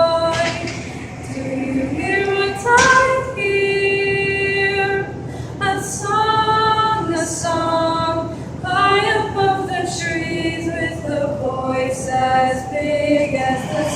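A choir of students' voices singing a Christmas carol a cappella, holding long sustained notes that move in steps from phrase to phrase.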